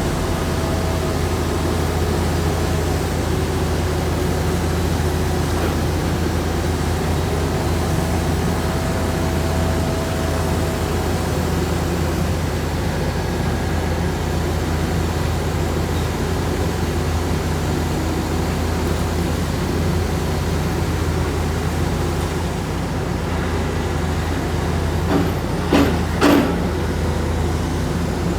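Heavy diesel machinery of a pile-drilling rig running steadily with a deep, even hum. A few sharp metallic knocks come near the end.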